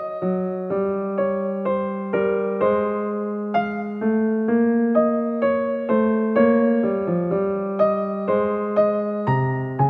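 Background music: a piano-like keyboard playing a gentle melody of evenly spaced notes, about two a second.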